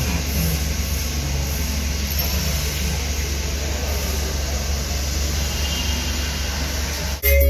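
Steady low rumble and hiss inside a car cabin. Music cuts in abruptly near the end.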